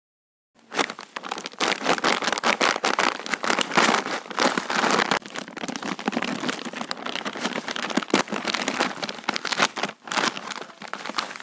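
A foil-lined Lay's Wafer Style chip bag crinkling and crackling in the hands as it is gripped at the top seam and pulled open. It starts about half a second in, close and loud.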